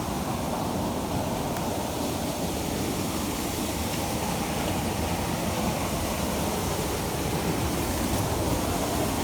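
Steady rushing of water from a hill-stream waterfall, a continuous even wash without breaks.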